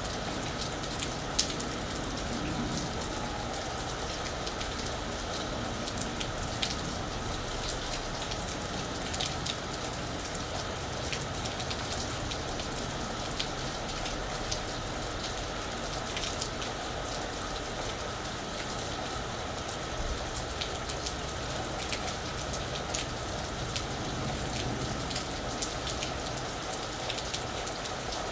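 Steady rain falling on a roof: a constant hiss with frequent sharp ticks of individual drops hitting the surface.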